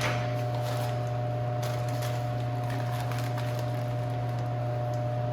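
A steady low mechanical hum with a fainter steady higher tone over it, and a few light clicks and taps.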